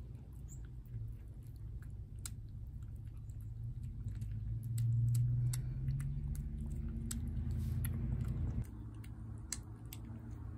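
A tabby cat chewing wet food from a plate up close: a string of small, irregular wet clicks and smacks. Underneath is a low hum that swells in the middle and cuts off suddenly near the end.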